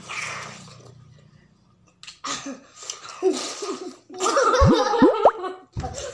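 Wet biting and slurping of watermelon, then from about two seconds in a woman and a small child laughing, loudest near the end.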